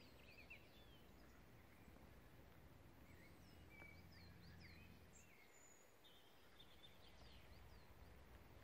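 Near silence: faint birdsong, scattered short chirps and whistled calls, over a low steady background hum.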